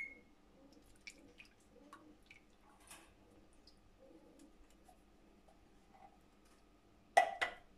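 Evaporated milk pouring from a can into a pot of coconut-milk mixture, faint with small drips and ticks. Near the end, two short loud sounds a fraction of a second apart.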